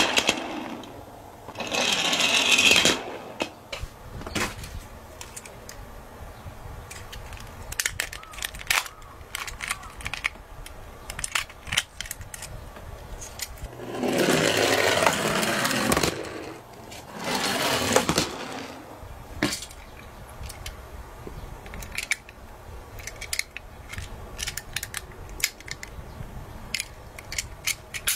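Die-cast toy ambulances rolling over a wooden board, their small wheels giving a rolling rattle that lasts a second or two each time: about two seconds in, and twice more after about fourteen seconds. Between the runs come scattered small clicks and taps of the toys being handled.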